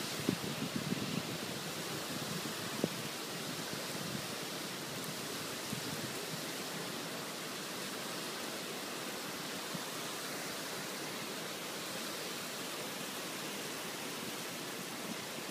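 Heavy driving rain pouring steadily during a storm, a dense even hiss, with a few louder sharp taps of drops in the first three seconds.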